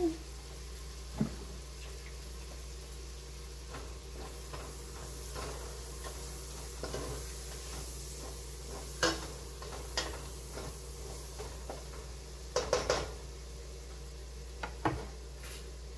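Chopped tomato, onion and garlic sizzling in a metal pot while being stirred, with a utensil knocking against the pot now and then and a quick run of three knocks about 13 seconds in.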